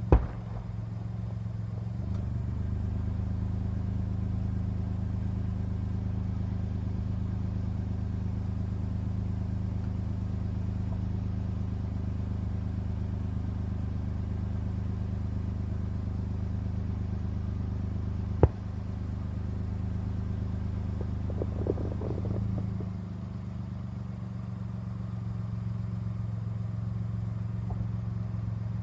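Two sharp firework bangs, one right at the start and one about 18 seconds in, with a brief crackle about 21 seconds in. Under them runs a steady low mechanical drone, like an engine running.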